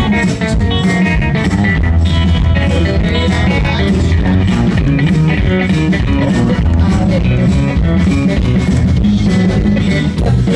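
Live rock band playing an instrumental passage: guitar over bass and drums, without singing.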